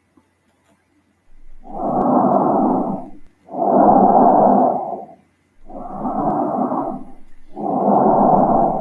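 Bronchial (tracheal) breath sounds heard through a stethoscope placed over the trachea: a harsh blowing noise in four strokes, breath in and breath out alternating, each about a second and a half long and separated by a short silence, starting about a second in.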